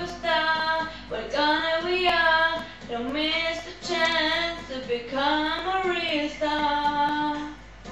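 A woman singing a pop song in phrases of about a second each, her voice high and bright. It cuts off suddenly at the end.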